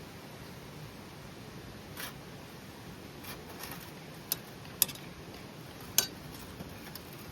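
Campfire wood crackling quietly: three sharp pops in the second half, a soft rustle earlier, over a faint steady hiss.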